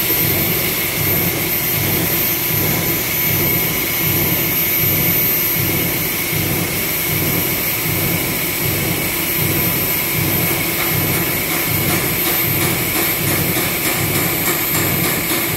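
PP meltblown fabric machine running: a steady rush of blown air and blower noise with a high whine over it and a low, regular throb about twice a second.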